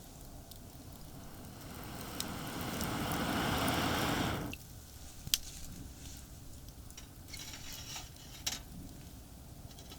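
Liquid poured into a cooking pot, building for about three seconds and stopping abruptly, then a sharp click and a few light knocks of cookware.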